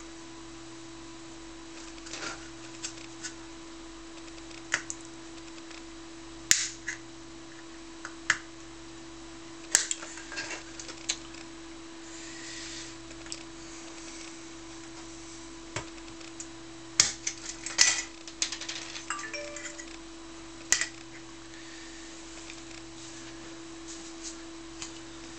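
Small screwdriver clicking and scraping against the black retaining ring and lens of an S10 gas mask eyepiece as the ring is pried off, in scattered sharp clicks and a few louder snaps. A steady low hum runs underneath.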